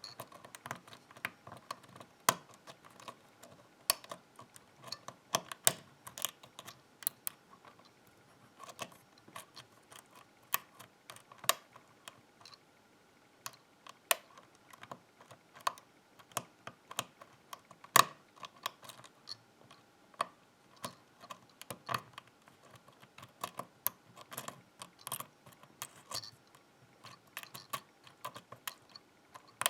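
Lock pick working the pins inside a Zeiss Ikon pin-tumbler lock cylinder: irregular small metallic clicks and taps, a few a second, as the pins are lifted and set.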